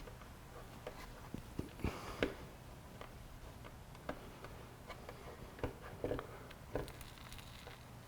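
Scattered light clicks, taps and short rubbing sounds of hands pressing and smoothing a clear adhesive tank grip onto a motorcycle fuel tank to work out air bubbles, over a low steady hum.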